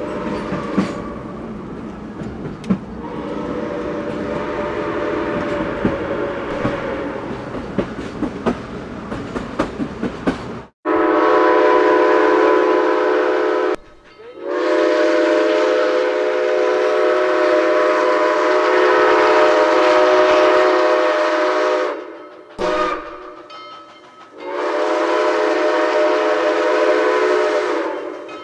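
Steam train running with wheels clattering over rail joints while a multi-note chime whistle sounds for a few seconds. After a sudden cut, a six-chime steam whistle blows a roughly three-second blast, a long blast of about seven seconds, a brief toot, and another blast of about three and a half seconds.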